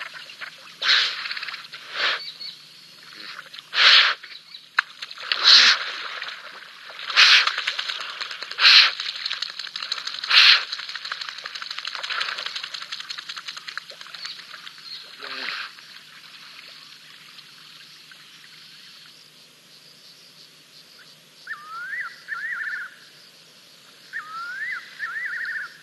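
Two hippos moving in a waterhole, making short noisy water bursts about every second and a half for the first fifteen seconds or so. Near the end a bird calls twice, each time a quick run of rising chirps.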